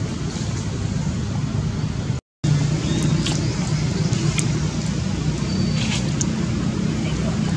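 A steady low rumble of background noise, broken by a brief moment of total silence about two seconds in, with a few faint high ticks over it.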